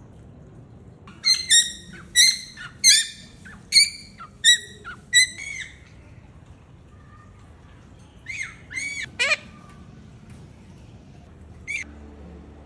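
A pet blue bird calling: a quick run of about eight short, loud calls, then three more a few seconds later and a single one near the end.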